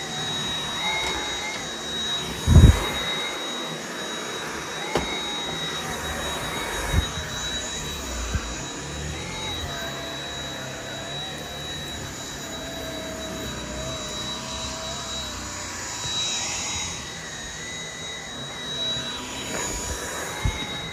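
Dyson V7 cordless stick vacuum running steadily with a high-pitched motor whine. A few low thumps break in, the loudest about two and a half seconds in.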